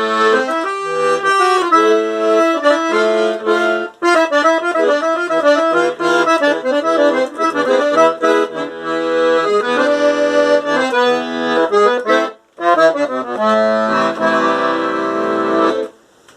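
Accordion playing a melody over chords, with a short break about twelve seconds in, then ending on a held chord that stops just before the end.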